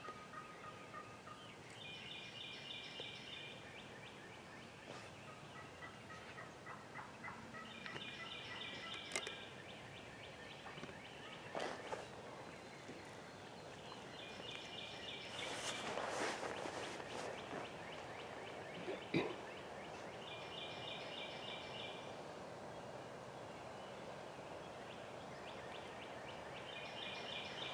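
Wild turkey gobblers gobbling, about five gobbles roughly six seconds apart. A few sharp knocks are heard between the gobbles.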